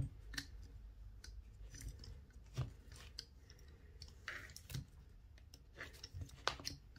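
Paracord being worked by hand while tying cobra knots, giving scattered soft rustles and small clicks as the cord is passed through and pulled tight.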